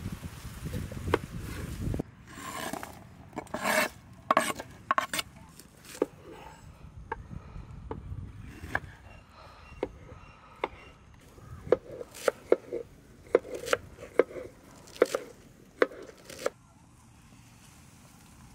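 Food being cut by hand on a wooden cutting board: irregular knife knocks, some in quick runs, with a few longer scraping strokes among the first of them. A low rumble stops abruptly about two seconds in, and the knocking dies away near the end.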